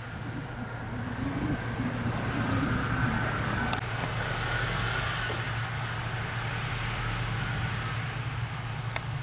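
Combine harvester engine running steadily, a low even drone with a faint higher whine over it, and a single short click a little before halfway.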